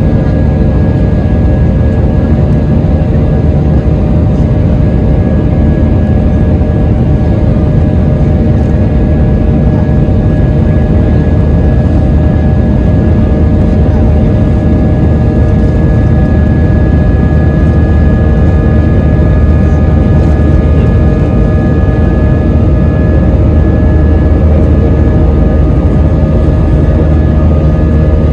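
Airliner's jet engines running steadily at high power, heard from inside the cabin: a loud, even rumble with several steady whining tones over it.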